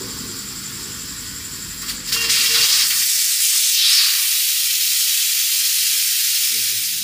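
Pressure cooker letting off steam: a loud, steady hiss rises about two seconds in and fades near the end, the pressure being vented so the lid can be opened.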